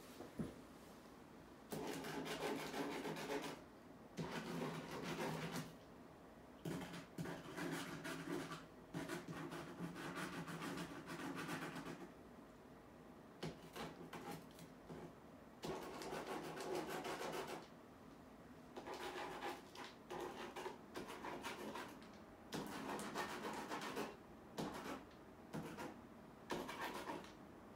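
Rubbing and scrubbing strokes of a hand-held art tool against a painted wall, coming in repeated bursts of one to three seconds with short pauses between them.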